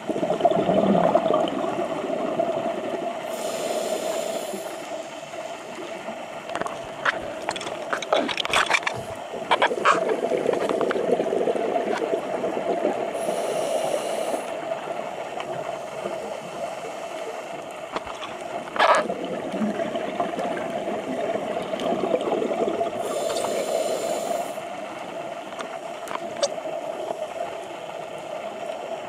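Scuba regulator breathing heard underwater: an inhalation hiss three times, about ten seconds apart, with exhaled bubbles gurgling in between. A few sharp clicks sound in the middle.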